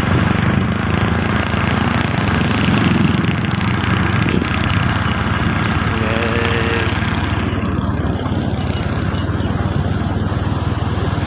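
Small motorcycle engine running steadily under way, a continuous low drone. A brief higher pitched sound is heard about six seconds in.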